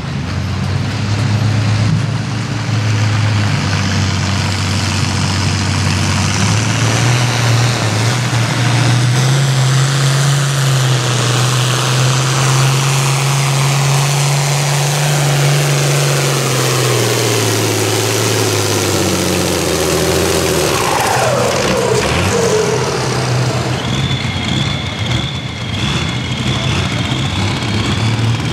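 International Harvester farm tractor's diesel engine pulling a weight-transfer sled under heavy load. Its note climbs, then drops away as the pull ends. Near the end a high, wavering whine sits over the engine noise.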